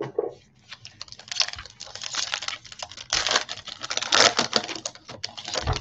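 A dense run of quick small clicks and rustles, from about a second in: a foil trading-card pack being opened and its cards thumbed through by hand.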